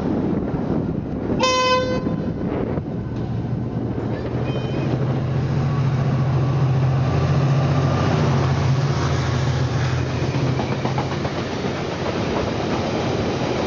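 Irish Rail 071 Class diesel locomotive 072 gives one horn blast about a second and a half in, then passes with its EMD V12 two-stroke engine droning steadily, followed by the rumble and clatter of freight wagons rolling by.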